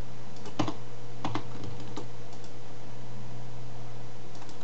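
A few scattered clicks of a computer keyboard being used, over a steady low hum.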